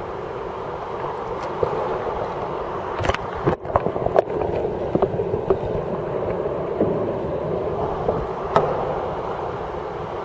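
Water splashing and sloshing around a sea kayak as it capsizes and is rolled back upright with the paddle (an Eskimo roll). There is a cluster of sharp splashes a few seconds in and one more later, over a steady rushing noise.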